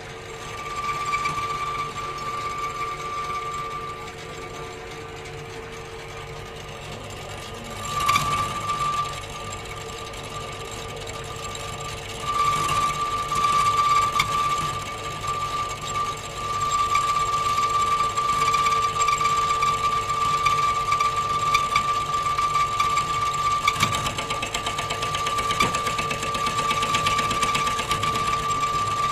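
Homemade lathe running with a steady high whine while a lathe tool faces the crown of an aluminium motorcycle piston flat. The cutting grows louder from about twelve seconds in, with a short louder burst a few seconds before.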